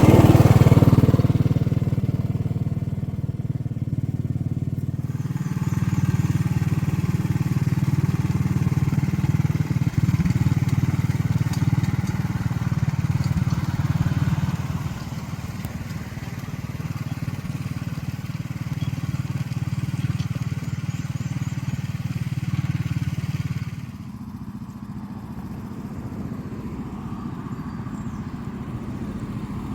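Small engine of a ride-on backyard rail vehicle running steadily under way. Its level shifts a few times and drops about two-thirds of the way through.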